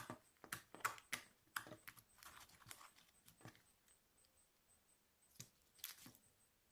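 Slime being squeezed and pressed, giving irregular wet pops and clicks: thick at first, then thinning out, with a couple of last pops near the end.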